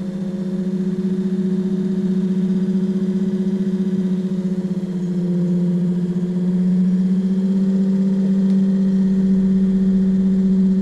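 A 24V electric trolling motor running on the bench with a steady hum, its brush housing set with the pin straight up and down during a brush timing test. About two-thirds of the way through, its pitch rises slightly and it grows louder as it speeds up.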